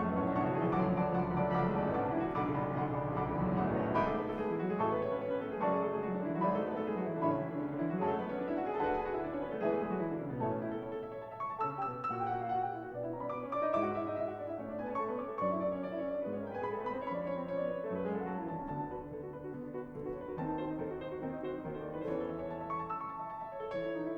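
Background piano music, a continuous flowing melody of stepping notes.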